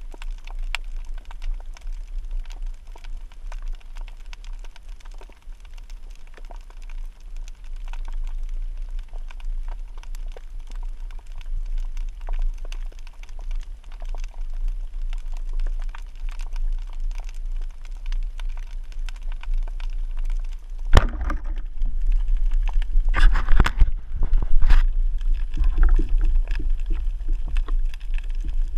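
Underwater: a steady low rumble of water with faint scattered crackling clicks, then, about three-quarters of the way through, a single sharp crack as the band-powered wooden speargun fires. A few seconds of louder clattering and rushing follow.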